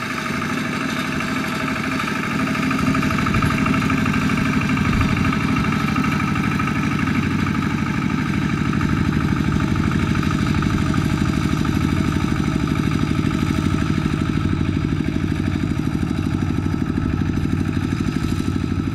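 Two-wheel walking tractor's single-cylinder diesel engine running steadily under load as it pulls a straw-gathering rake through rice stubble.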